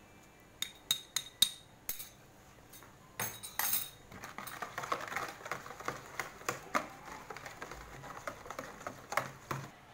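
A metal spoon clinks several times against a bowl's rim, knocking off grated lemon zest. From about four seconds in, a wire whisk beats a thin batter in a ceramic bowl: a steady wet swishing with quick light clinks of the wires on the bowl.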